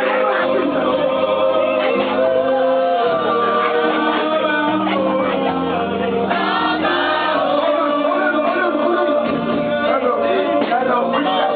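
Congregation singing a gospel worship chorus together, with keyboard and bass accompaniment.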